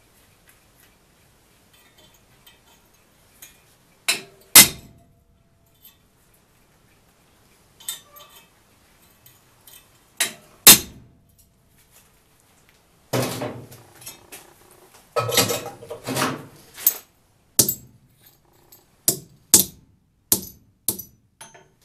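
Hand hammer striking steel at an anvil fitted with a homemade texturing tool, working sheet metal: sharp metallic blows, a pair about four seconds in and another about ten seconds in, then more frequent strikes with some metal clattering between them in the second half.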